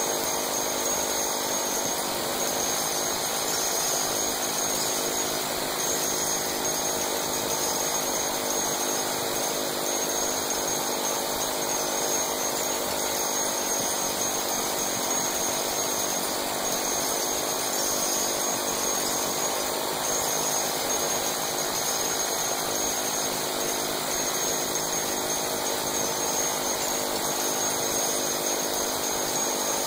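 M134 minigun firing continuously, its shots coming so fast that they run together into one steady, unbroken drone that never changes.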